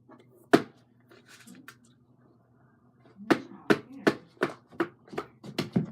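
A single sharp tap, then from about halfway on a quick run of about ten sharp taps or clicks, roughly three a second.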